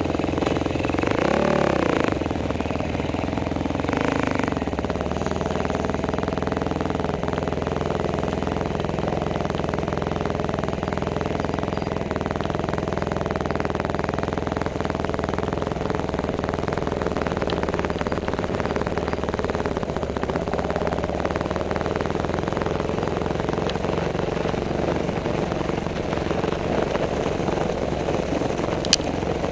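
A sport ATV's single-cylinder four-stroke engine, heard close up from the quad carrying the camera: it revs up and back down in the first couple of seconds, blips again about four seconds in, then runs steadily at low revs. A couple of sharp ticks come near the end.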